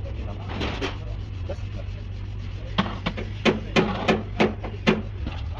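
A series of short rasping strokes, one near the start and then about six in quick succession from about three seconds in, over a steady low hum.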